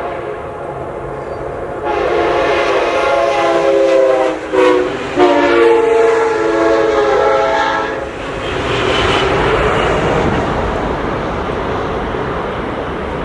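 Amtrak locomotive's five-chime air horn sounding a long blast, a short one and another long one, its chord louder from about two seconds in. After the horn stops, the passing train's wheels and rails make a steady rushing noise.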